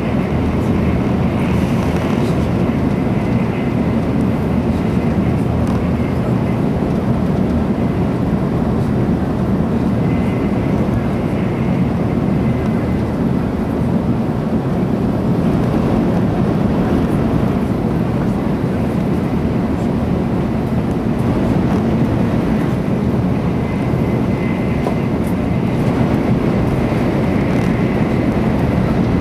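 Steady running noise of a 300 series Shinkansen at high speed, heard inside the passenger cabin: a loud, even rumble with a faint steady whine above it.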